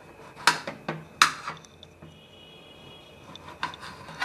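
Kitchen knife slicing through a peeled bottle gourd and knocking against the plate beneath: two sharp knocks in the first second and a half, then a few lighter taps near the end.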